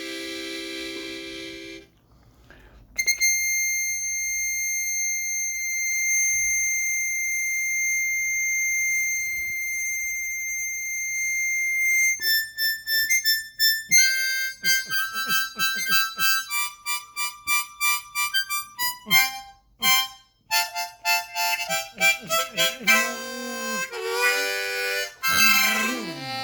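Harmonica played solo: a chord, a short break, then one high note held for about nine seconds, followed by a quick run of short separate notes and chords with a few bent notes near the end.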